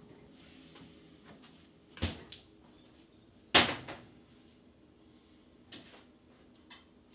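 Kitchen knocks from a door being shut and objects being handled: a shut about two seconds in, a louder sharp knock a second and a half later, then two faint clicks.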